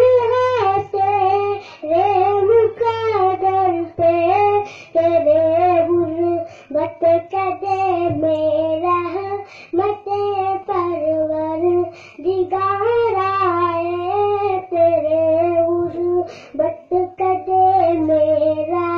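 A young boy singing a naat, a devotional song, into a microphone, in long phrases with drawn-out notes that rise and fall. A steady low hum runs beneath the voice.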